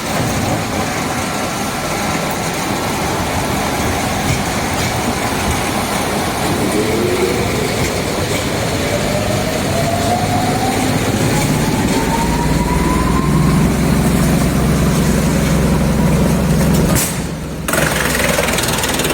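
Wood chipper running steadily. Partway through, a thin whine rises in pitch over several seconds as the machine speeds up, and then a heavier low drone sets in. Near the end there is a brief break before the noise resumes.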